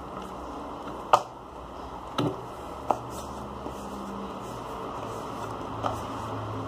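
A small product box being handled: four sharp clicks and taps, the loudest about a second in, over a steady low background hum.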